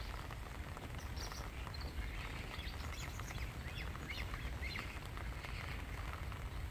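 Great crested grebe chicks giving quick runs of short, high-pitched chirping calls over a steady low rumble.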